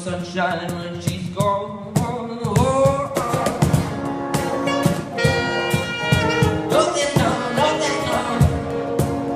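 A live band playing music: a pitched melody over regular percussion strokes.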